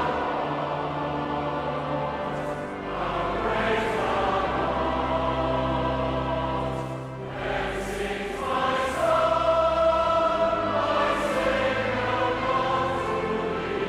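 A choir singing slow, sustained chords, the notes held for a second or more before moving to the next.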